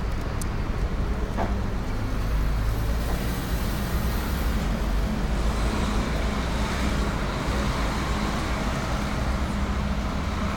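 Steady city street traffic: passing cars and buses making a continuous low rumble.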